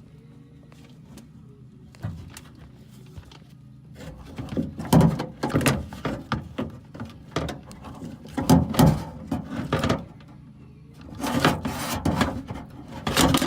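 The old door lock actuator of a 2012 Toyota 4Runner being worked out of the front door cavity, knocking and rattling against the inside of the door in two stretches of clunks, the first starting about four seconds in and the second near the end.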